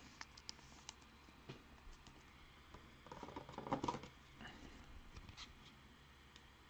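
Faint handling of trading cards: scattered small clicks and taps, with a brief rustling scrape about three to four seconds in.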